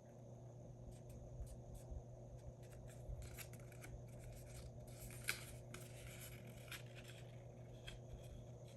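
Cardstock and paper being folded and creased by hand: faint crackling rustles and small paper ticks, busiest in the middle, over a low steady hum.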